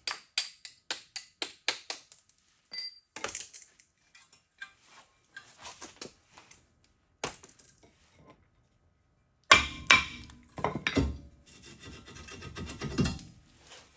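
Metal tools and car parts handled: a quick run of light clinks, scattered clicks, then a loud knock about nine and a half seconds in followed by a few seconds of clattering and scraping.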